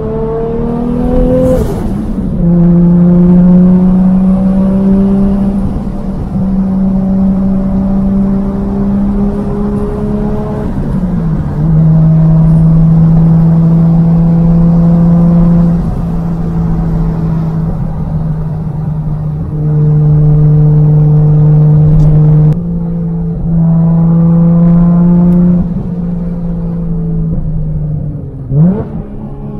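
Nissan R33 GT-R's RB26 twin-turbo straight-six running through a Tomei titanium exhaust while the car is driven, holding a steady drone with a few steps in pitch. A quick rise and fall in pitch comes near the start, and a short sharp rev blip near the end.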